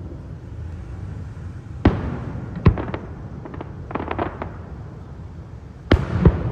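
Aerial fireworks shells bursting. There is a sharp boom about two seconds in and another a moment later, then a cluster of crackling pops around four seconds, and two more booms near the end, all over a steady low rumble.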